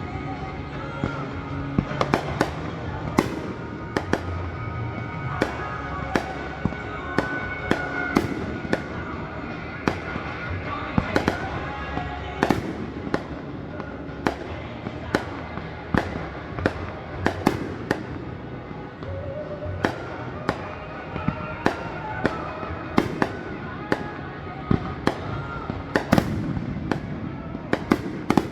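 Aerial fireworks display: a rapid, irregular string of sharp bangs and pops, about one or two a second, with music playing underneath.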